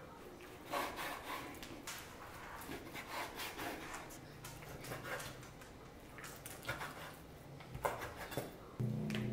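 Kitchen knife cutting on a wooden cutting board, a run of short scraping strokes. Background music comes in near the end.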